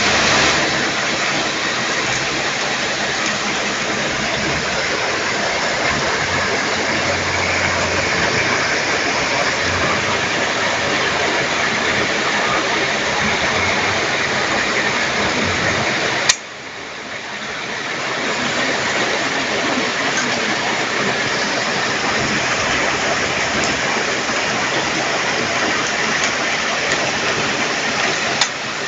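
Heavy rain with hail falling, a dense steady hiss. About halfway through there is a sharp click, after which the sound drops and builds back up over a couple of seconds.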